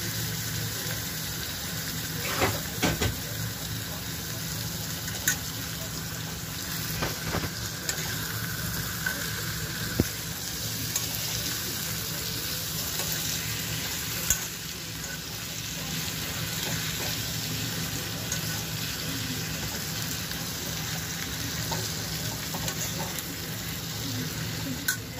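Bitter gourd pieces sizzling in oil in a pan while being stirred with a spatula, with a steady hiss and an occasional sharp knock or scrape of the spatula against the pan.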